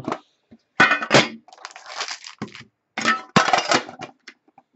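Crinkling and crackling of packaging as a trading-card box is opened and its foil-wrapped pack is taken out, in three loud bursts with a few small clicks between them.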